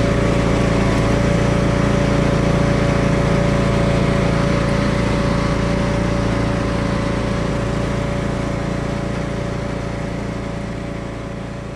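Craftsman riding lawn tractor's engine running steadily as the tractor drives along, heard from the seat, gradually fading out over the last several seconds.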